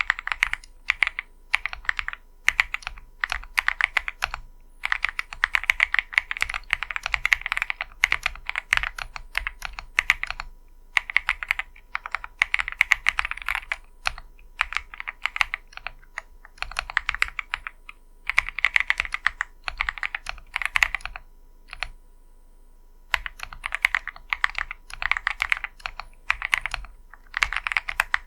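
Typing on a lubed and tuned 75% Monsgeek M1 custom mechanical keyboard with WS Morandi linear switches, Durock stabilizers and RSA-profile PBT keycaps. The keystrokes come in fast runs broken by short pauses, with a longer pause of about a second and a half some three-quarters of the way through.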